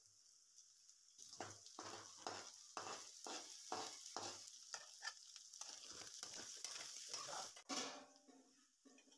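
Beaten egg sizzling in a wok as a metal spatula stirs and scrambles it through chicken and vegetables, scraping the pan in quick repeated strokes, about three a second. The stirring starts about a second in and stops near the end.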